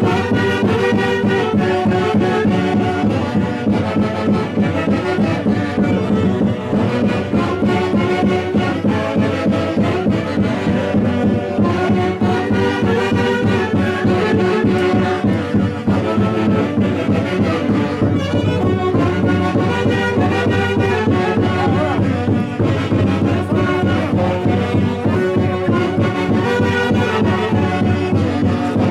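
Huancayo-style orquesta típica playing a Santiago tune: horns carrying the melody over a steady, even beat, with no pause.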